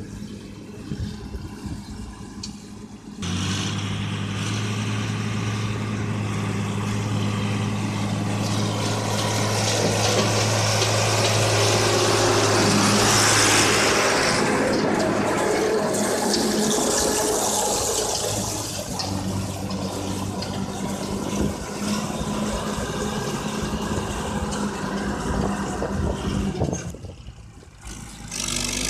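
Fiat tractor of about 100 hp running steadily as it pulls a working manure spreader, with a hiss of manure being flung from the spreader. The engine comes in abruptly about three seconds in, grows loudest around the middle as it passes close, then eases off and drops away near the end.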